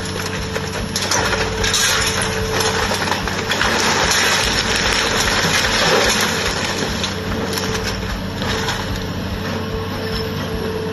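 A wood-frame house collapsing under an excavator bucket: a long run of cracking and crashing of timber, siding and roofing that is loudest in the middle and tails off near the end, over the excavator's engine running steadily.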